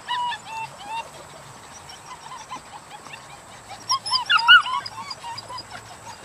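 Dutch Shepherd puppies whining and yipping in short, arching high-pitched cries. There are several in the first second, few through the middle, then a louder cluster of yelps about four seconds in.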